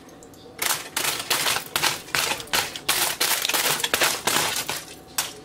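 Aluminium foil crinkling and crackling as it is peeled back off a baked fish, in a quick irregular run of crackles starting about half a second in.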